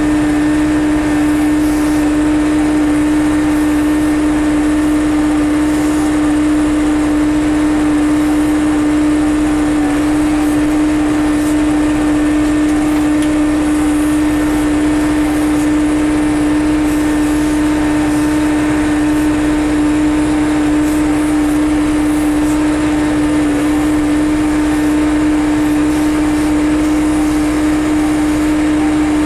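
John Deere 6300 tractor's four-cylinder diesel running at a steady speed while baling, with one strong steady hum over it.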